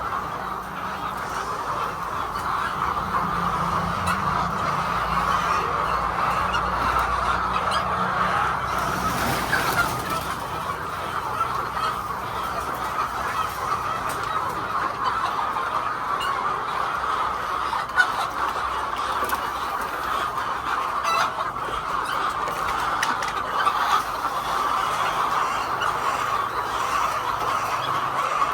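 A large flock of hens clucking and chattering together in a steady, continuous din.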